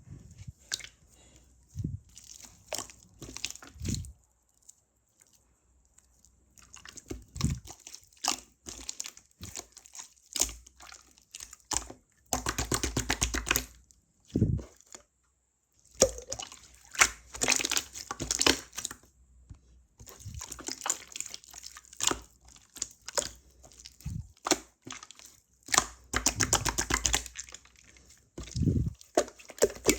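Slime being squeezed and poked by hand, making sticky squelches and rapid crackling, popping clicks. The sounds come in bursts with short pauses between them.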